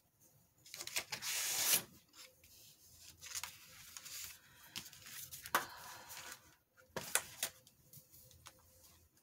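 Metallic colored pencil scratching on paper as it is swatched. A loud rustling scrape comes about a second in, with scattered clicks from pencils being handled.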